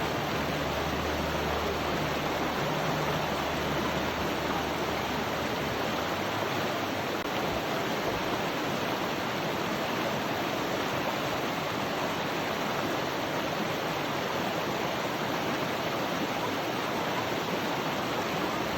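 Valley stream water rushing steadily over rocks. A faint low hum lies under it for the first six seconds or so, then drops away.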